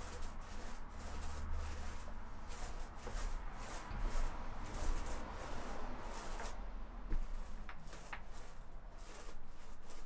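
A small paint roller rolled back and forth over a flat cabinet door, laying on wet grey paint: soft, repeated rubbing strokes.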